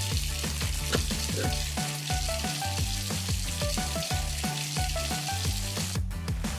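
Light background music with a stepping bass line and plucked melody notes, over a steady hiss that breaks off briefly near the end.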